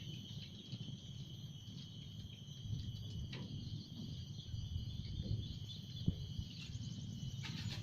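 Steady high chirring of an insect chorus over a low rumble, with a few faint handling clicks.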